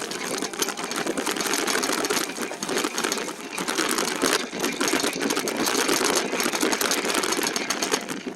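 E-bike ridden over a rough trail: a steady, rapid mechanical rattle and clatter of the bike and its tyres over the bumps.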